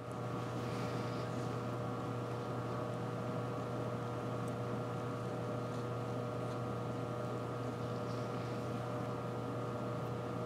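Steady low hum of diesel locomotive engines running, with several constant tones above it and a light hiss.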